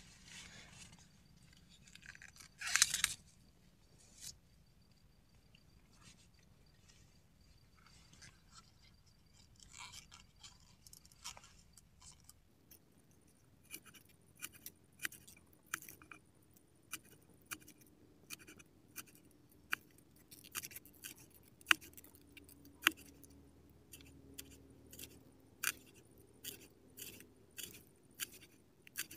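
Small knife chopping green onions against a round wooden slice used as a cutting board: a run of sharp, irregular cutting taps, roughly one or two a second, from about halfway on. A brief louder rustle of handling comes about three seconds in.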